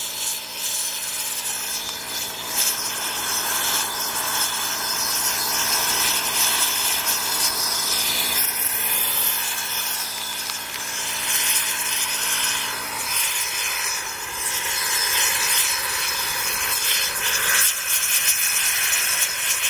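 Homemade propane burner running, a steady, rough roar of gas and flame from its can-shaped nozzle. A low hum underneath stops about 13 seconds in.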